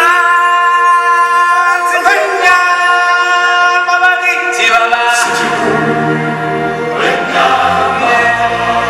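Music with choir-style group singing over held chords; a bass line comes in about five seconds in.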